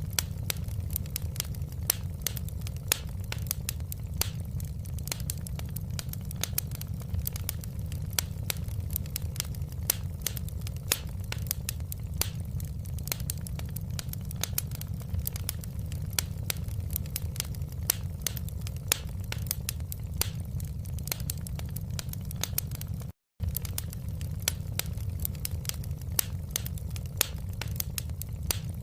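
Wood fire crackling in a fireplace: a steady low rumble of burning with frequent sharp pops and snaps, cutting out for a split second about two-thirds of the way through.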